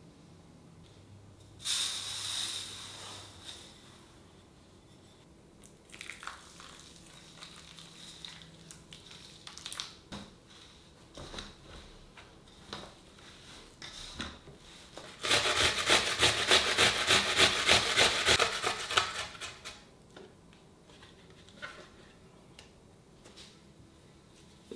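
Kitchen food-preparation sounds on a wooden surface: a brief scrape, scattered light knocks and rubbing, then a few seconds of rapid, evenly spaced strokes at about four a second.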